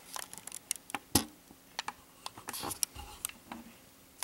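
Handling noise from a camcorder being adjusted by hand close to its built-in microphone: a string of small, irregular clicks and taps, the sharpest about a second in.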